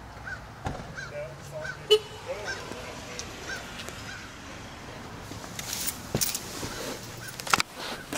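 Handling noises in a car's rear seat area: a sharp click about two seconds in, then knocks and rustling later on as a hand works the seatback pocket. Faint short chirps repeat every half second to a second underneath.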